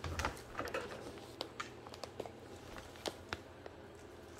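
Rustling and scattered small clicks as two dogs shift about in a plastic pet crate while a hand pets them, with a heavier bump right at the start.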